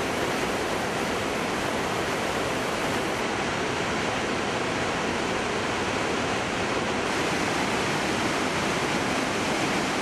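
The Iguaçu Falls' great volume of water pouring over the cliffs and churning below: a steady, even rush with no breaks.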